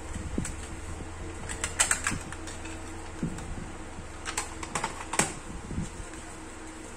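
A cassette tape in its clear plastic case and its folded paper insert being handled: light plastic clicks and clacks in two clusters, about two seconds in and again around five seconds in.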